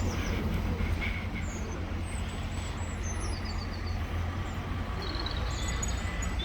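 Steady low background rumble, with small birds chirping in short series of high notes now and then over it.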